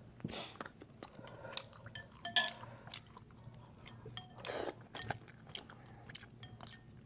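Faint scattered clinks and taps of utensils against dishes, with soft chewing, during a meal.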